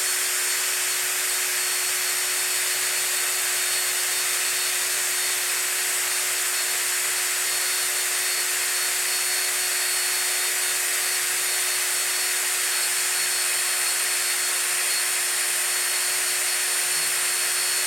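Electric drill running steadily under load while boring a pilot hole for a tap, an even whine that holds without a break.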